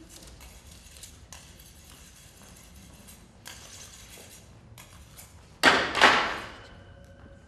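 Light taps and clicks of kitchenware, then about five and a half seconds in a loud crash of metal pots and pans, two hits close together, that dies away into a lingering metallic ring.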